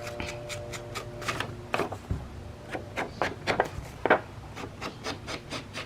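Paper and card being handled and pressed on a worktable: a string of irregular light taps and clicks, with a faint steady hum in the first couple of seconds.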